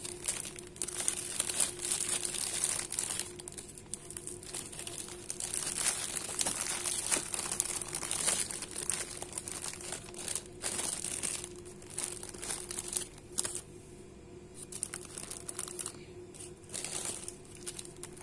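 Thin clear plastic bags crinkling and rustling as they are handled, with soymilk cartons and sandwiches being packed into them. The crinkling is busiest in the first two-thirds, thins out later, and has a short burst near the end.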